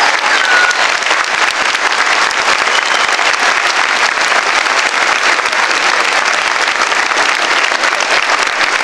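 Large audience applauding steadily, with a brief whistle or two in the first few seconds.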